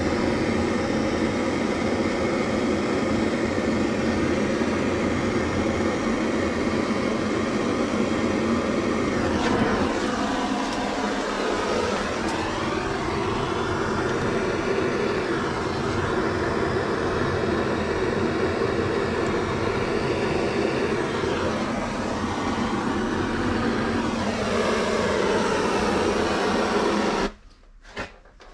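Shinfuji Power Torch cartridge gas torch burning steadily, its flame heating a copper water pipe joint for brazing. The sound cuts off suddenly about a second before the end as the torch is shut off.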